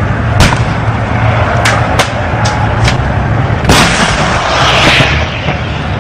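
About six sharp, irregularly spaced gunshot reports, the loudest about two-thirds of the way in and followed by a long rolling echo, over a steady low engine rumble.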